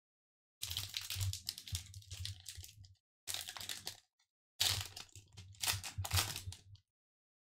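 Foil wrapper of a Pokémon Vivid Voltage booster pack crinkling and tearing as it is pulled open by hand, in three stretches of crackling with short gaps between, the middle one brief.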